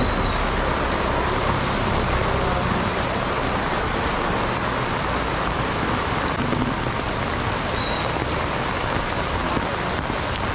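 Torrential rain pouring onto a wet paved street, a steady, even hiss of falling and splashing drops.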